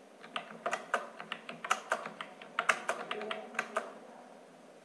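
Computer keyboard being typed on: a quick, irregular run of key clicks as numbers are entered one per line with the Enter key, stopping about four seconds in.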